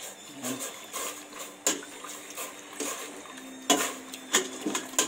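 Metal ladle stirring squid pieces being blanched in a stainless steel pot of boiling water, clinking against the pot a handful of times over a soft watery wash.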